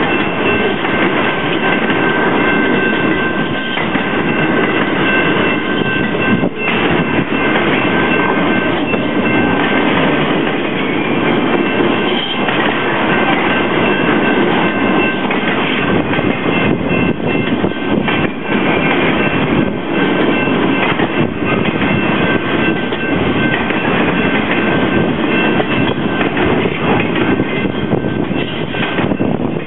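Railroad cars rolling past at speed: a steady rumble and rattle of steel wheels on the rails, with thin, steady high squeal tones riding over it. The cars are passenger coaches, then flatcars carrying truck trailers.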